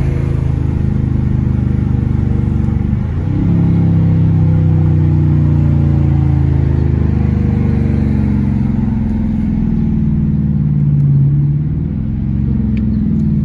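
2020 Dodge Challenger R/T's 5.7-litre HEMI V8 exhaust with the mid-mufflers deleted, running while the car is driven; the engine note rises and falls with the throttle, with a brief dip about three seconds in.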